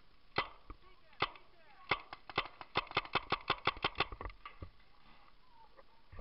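Paintball marker firing: three single shots, then a rapid string of about a dozen shots in about two seconds.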